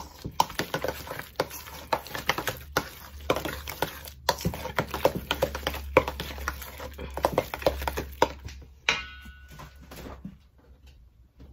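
Metal spoon stirring and mashing a thick baked-potato and cheese filling in a bowl, with rapid clicks and scrapes against the bowl. Near nine seconds there is a short high tone, and the stirring sound thins out after that.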